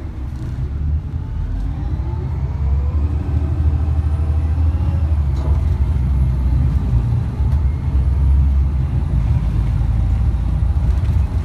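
Low rumble of a city bus heard from inside the cabin, with a whine that rises in pitch a couple of seconds in as the bus picks up speed.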